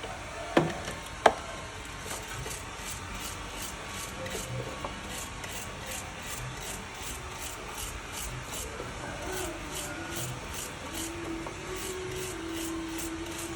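Hand rubbing on an engine part: steady back-and-forth strokes, about two a second, after two sharp knocks in the first second and a half.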